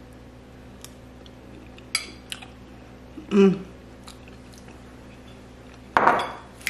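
A person chewing a mouthful of chili and cornbread, with a few light fork clicks and a short hummed "mm" about halfway through. Near the end comes a brief, louder burst of noise.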